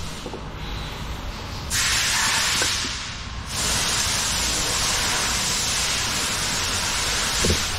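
A steady, loud hiss like rushing air, with no pitch. It steps up in level just under two seconds in, dips a little after three seconds, and comes back up. A few faint knocks come near the end.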